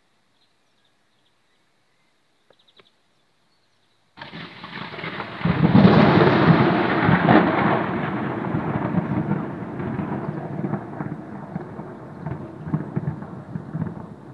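Thunder from a close lightning strike: a sudden crack about four seconds in, swelling to its loudest a second or two later, then a long rumble slowly dying away.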